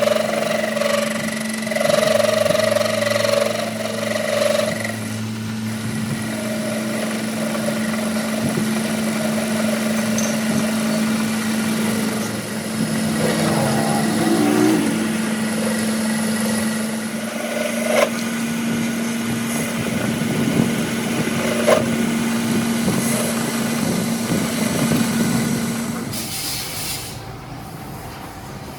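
A motor running steadily with an even hum, with a few sharp clicks and clanks of metal, then winding down and stopping a couple of seconds before the end.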